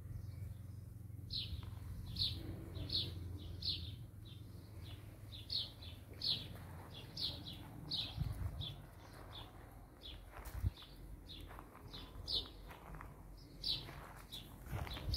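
A small bird chirping over and over, short high falling notes about one to two a second. Some faint scuffing on gravel in the second half.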